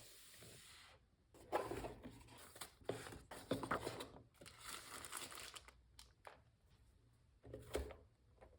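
Typing on a Chilkey ND75 mechanical keyboard with lubed Gateron Smoothie switches, PBT keycaps and a polycarbonate plate: irregular flurries of dense key clacks with short pauses between them.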